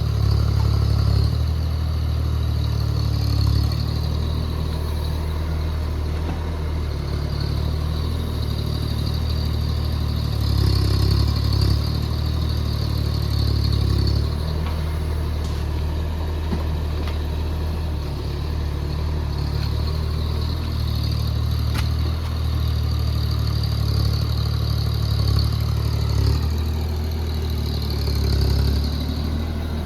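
Diesel engine of a JCB JS30 Plus mini excavator running steadily while the machine works. The engine note swells louder several times.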